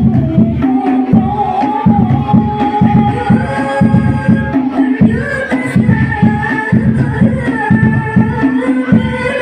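Hadroh ensemble playing: rebana frame drums beating a quick, steady rhythm under a voice singing long, drawn-out melodic lines, heard through the group's sound system.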